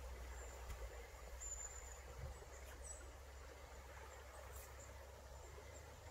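Quiet riverside ambience: a steady low rumble of wind on the microphone over a faint even hiss, with a few short, thin, very high chirps.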